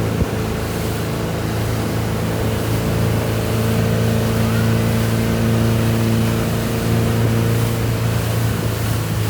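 Motorboat engine running at a steady pitch, with water and wind rushing past.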